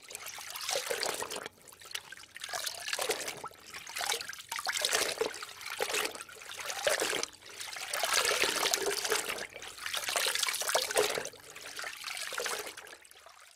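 Water splashing and trickling, in surges that swell and fade every second or two.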